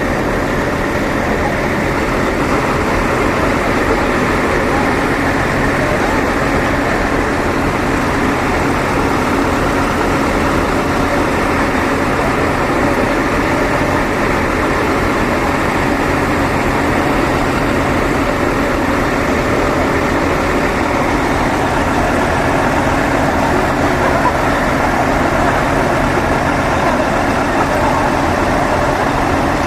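Big truck engines idling steadily, a constant low hum, with a crowd's voices mixed in.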